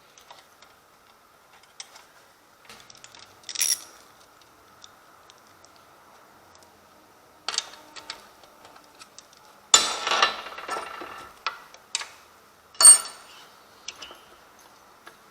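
Metal tools and parts clicking and clinking as the bolts of an angle grinder stand's mounting bracket are tightened: scattered small ticks, a few sharper knocks, and a longer clatter of metal on metal about ten seconds in.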